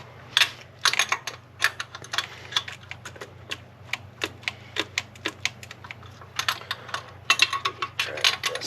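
Sharp, irregular clicks, about two or three a second and busier near the end, from hand tools at work on the engine's thermostat housing bolts.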